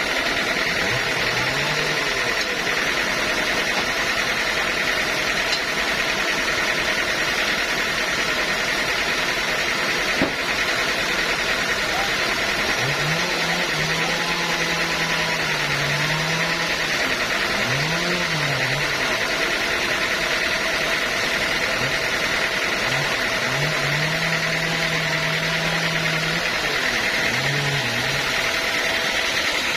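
A sawmill engine running steadily under a constant mechanical whine, with one brief knock about a third of the way through.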